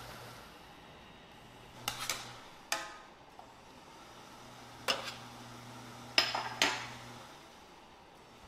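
Dishes and cutlery clinking in a kitchen: about six sharp knocks spread over a few seconds, one of them ringing briefly.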